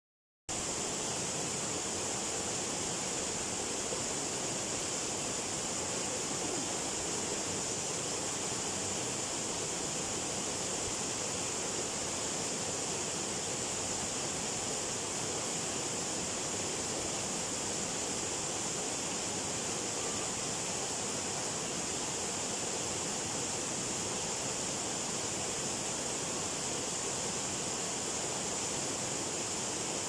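Steady rushing of a waterfall pouring over rocks, with the stream running close by; it starts about half a second in.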